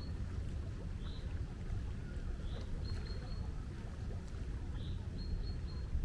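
Seaside ambience: a steady low rumble of wind and surf. Faint high chirps recur about every two seconds over it.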